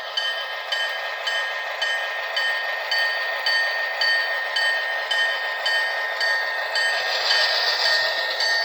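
Locomotive bell from an HO scale model's sound decoder, ringing steadily through its small speaker at about two strokes a second over the diesel idle sound.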